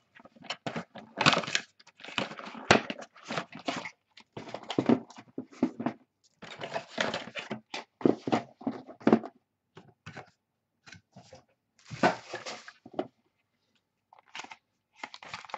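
Packs of trading cards being torn open and handled: irregular bursts of tearing and crinkling wrapper, and the rustle of cards and cardboard, with short gaps of quiet between them.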